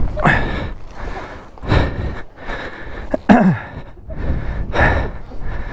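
A person gasping and breathing hard with effort, about four heavy breaths roughly a second and a half apart, with a falling groan about three seconds in.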